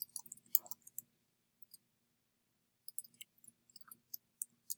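Computer keyboard keys clicking as a username and password are typed, in two quick runs of keystrokes with a pause of about two seconds between them.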